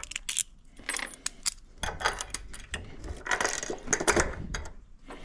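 Small metal hardware clinking and clattering in a quick irregular series: nuts and washers on the bench vise's mounting bolts being handled and tightened.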